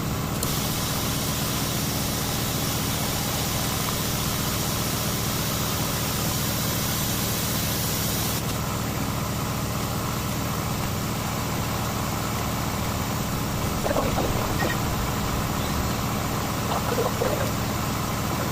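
An engine idling steadily, with a loud hiss over it that starts just after the beginning and cuts off sharply about eight seconds in.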